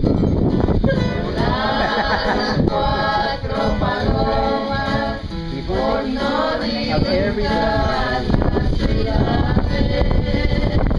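A small group of voices singing together, accompanied by an acoustic guitar.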